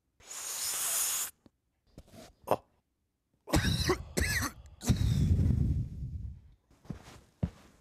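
A person coughing hard several times in a row, after a short hiss near the start.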